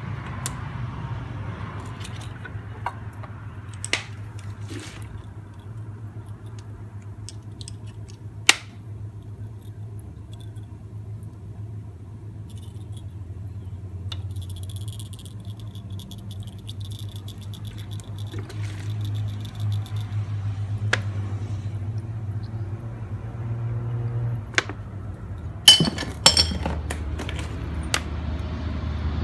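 Light metal clinks, taps and rattles of hand tools and the loose timing chain against a motorcycle engine's cam sprocket and case, with a run of fine rapid ticking midway and a quick cluster of sharp clinks near the end. A steady low hum lies underneath.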